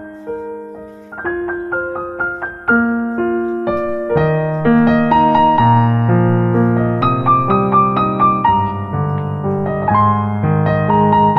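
Background piano music: a gentle melody of struck notes that grows fuller, with low bass notes and chords, about four seconds in.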